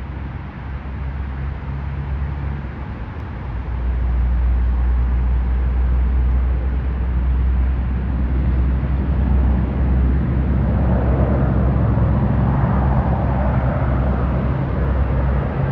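A steady low rumble that steps up in level about four seconds in, with the jet noise of an approaching Boeing KC-46A Pegasus tanker's two turbofans swelling in over it from about ten seconds in.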